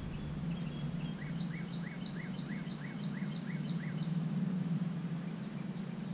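A songbird singing a run of about ten quick, falling notes, roughly three a second, over a steady low background hum.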